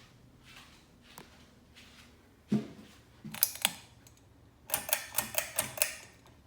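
Ceiling fan pull-chain switch and chain clicking: a knock, a few clicks, then a quick run of about seven sharp clicks, as the fan is switched between speeds.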